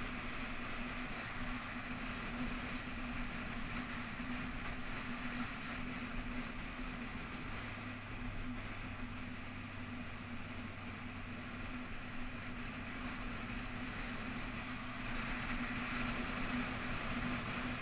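Motorcycle engine running steadily at cruising speed with a constant low hum, mixed with wind and road rush on the bike-mounted microphone; the rush grows a little louder near the end.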